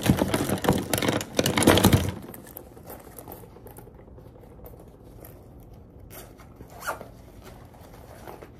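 A pencil pouch's zipper pulled open in the first two seconds, then quieter rummaging through its contents, with one short sharp handling sound near seven seconds in.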